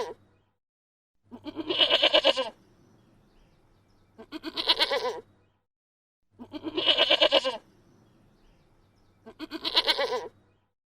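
A bleating farm animal, a goat or sheep type of call, giving four long quavering bleats at even intervals of about two and a half seconds, with the tail of another just at the start.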